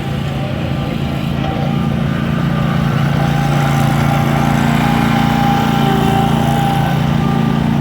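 Bobcat XRZ Pro zero-turn mower's Kawasaki FX730V V-twin engine running steadily under way, with a fainter whine above the engine note; it grows somewhat louder about two to three seconds in.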